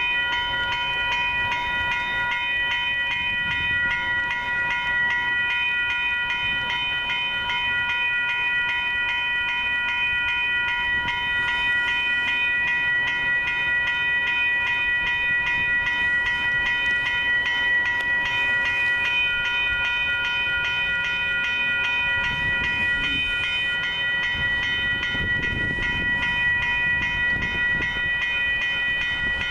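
Railroad grade-crossing warning bell ringing with a fast, even repeat while the crossing gates are down, warning of an approaching train. A low rumble builds in the last few seconds.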